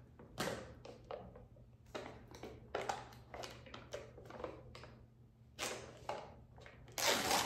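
The lid and foil safety seal of a plastic tub of powdered pre-workout being worked open and peeled by hand: a string of short scratchy crinkles and taps, with a louder rasp near the end.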